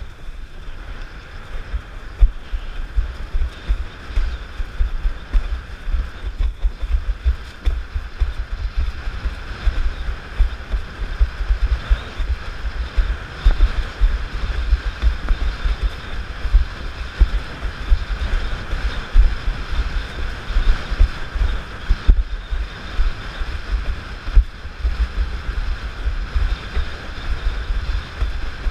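Wind buffeting an action camera's microphone in an uneven, fluttering rumble while a windsurf board planes across choppy water, with a steady hiss of water and spray rushing past the hull.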